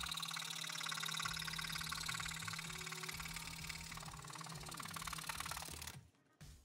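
Scroll saw fitted with an Olson #3 Crown Tooth blade running and cutting thin wood: a fast, even buzzing chatter of the reciprocating blade over a steady motor hum. It stops abruptly near the end.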